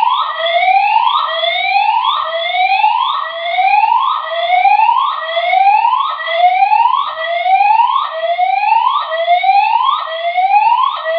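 Building fire alarm evacuation tone: a loud whoop, a rising sweep repeated about once a second, signalling evacuation during an alarm test.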